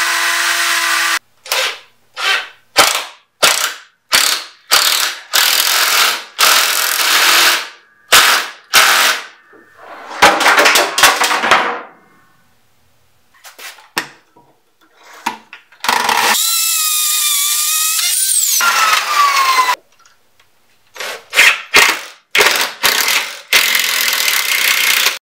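Cordless drill running in many short bursts, each a second or less up to a couple of seconds, as screws are driven to fasten a plywood board to a concrete block wall. There is a quiet gap just before the middle and a steadier run of about four seconds after it.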